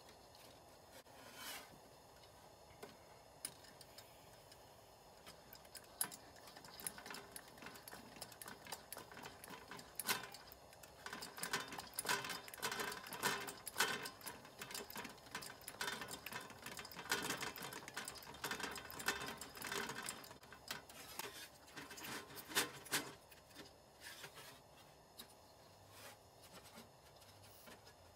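Coleman gasoline camp stove's fuel tank being pressurised by hand: the pump plunger is worked in a long run of quick, repeated clicking strokes that start about a third of the way in and stop a few seconds before the end.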